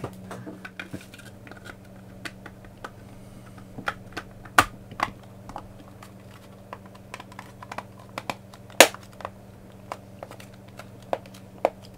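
Irregular plastic clicks and taps as the black plastic housing of a cordless air duster is handled and its halves pressed together. One sharper knock comes nearly nine seconds in.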